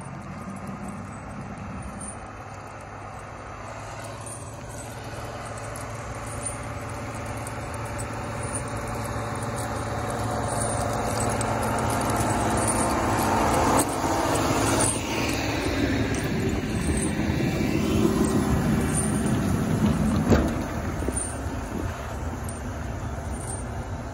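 Diesel engine of a Case IH tractor pushing a snow blade and pulling a trail-grooming drag, growing steadily louder as it approaches and passes close by. There is one sharp knock about twenty seconds in.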